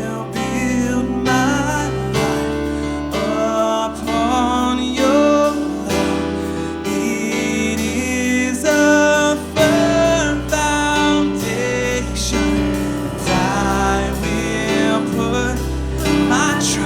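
A worship band playing a slow song: piano, bass guitar and drums with voices singing the melody over them.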